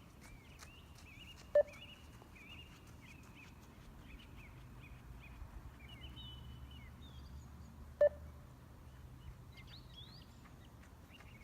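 Two short, single-tone beeps from a 20 m beep test (multistage shuttle-run fitness test) recording, about six and a half seconds apart. Each beep marks the end of one 20 m shuttle at level 6. Birds chirp faintly in the background.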